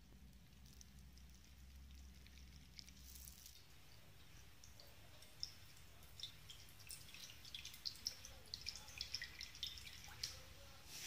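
Milk pouring in a thin stream from a pouch into a glass bowl: faint splashing and drip-like ticks begin about four and a half seconds in and grow busier toward the end. Before that there is only a faint low hum.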